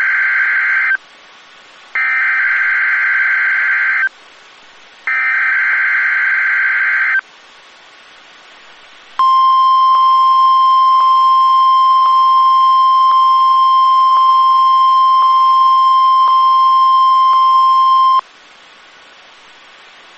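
NOAA Weather Radio SAME digital data header: three loud bursts of rasping, warbling data tones, about two seconds each with about a second between them, the first already under way. About two seconds after the third burst, the steady 1050 Hz weather radio warning alarm tone sounds for about nine seconds and stops abruptly.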